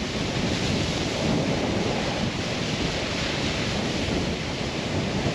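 Steady rushing wind noise on the microphone with the low rumble of a moving pickup truck, heard from its open bed.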